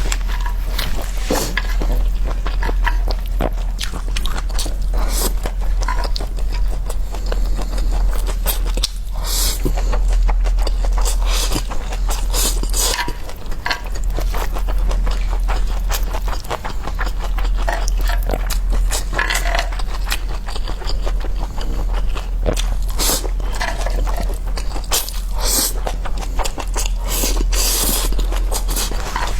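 Close-miked eating sounds: chewing and crunching of food, with scattered irregular clicks and scrapes, over a steady low hum.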